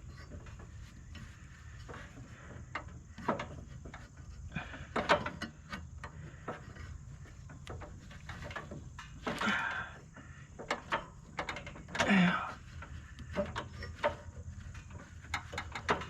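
Scattered clicks and knocks with a few short rustling, tearing sounds as a dog toy wound up under a riding mower is pulled and worked loose.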